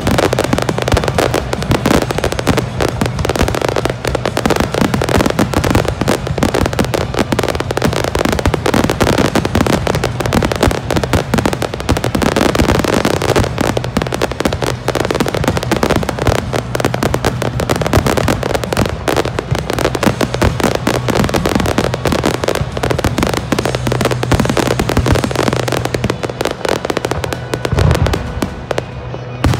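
Fireworks display in full barrage: a dense, unbroken run of bangs and crackles from aerial shells bursting one over another, easing slightly just before the end.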